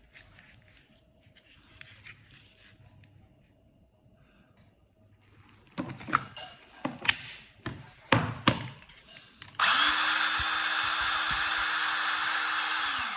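A few sharp knocks, then the electric motor and hydraulic pump of a Makita 18V cordless hydraulic steel cutter starting up and running loud and steady for about three and a half seconds before winding down near the end.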